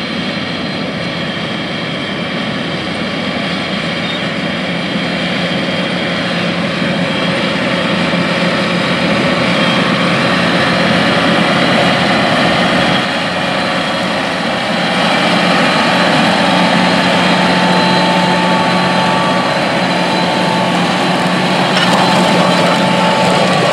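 John Deere 8370RT track tractor's diesel engine running steadily as it pulls a 24-row corn planter past, getting louder as the tractor comes closer. A faint higher whine joins in during the second half.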